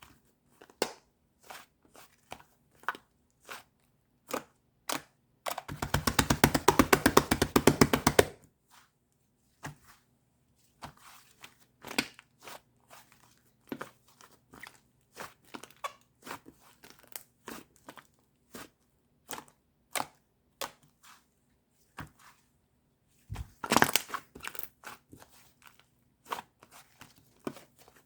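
White slime being pressed, poked and squished by hand, giving scattered sticky clicks and pops. It twice breaks into a run of rapid crackling pops, about six seconds in and again near the end.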